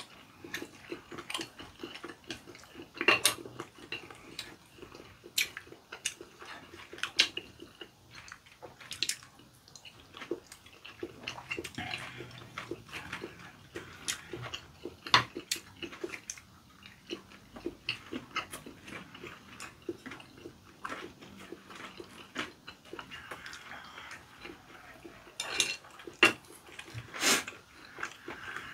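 Mukbang eating sounds: chewing and biting into chewy rice cakes, noodles and gimbap, with chopsticks clicking against the plates and the pan at irregular intervals.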